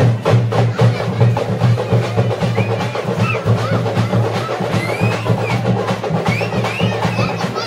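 Thappu (parai) frame drums beaten in a fast, dense, steady rhythm for street dancing.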